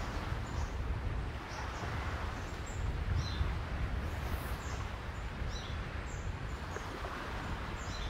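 Outdoor nature ambience: a steady low rumbling noise with short high bird chirps now and then.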